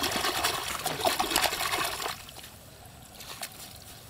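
Many small fish thrashing in shallow water in a net as a hand scoops through them: a dense wet crackle of splashes for about two seconds, then only a few scattered splashes.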